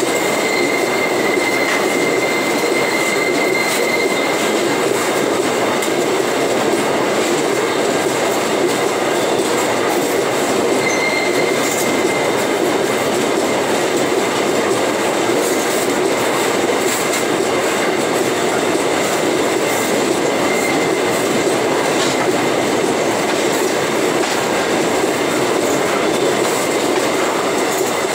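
Empty iron-ore wagons rolling slowly past at close range: a loud, steady rumble and rattle of steel wheels on the rails. A thin, high wheel squeal comes and goes three times: at the start, about a third of the way in, and about two-thirds in.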